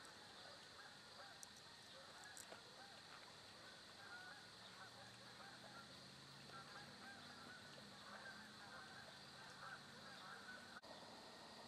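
Faint, distant bird calls: many short calls repeated over and over, over a quiet outdoor background.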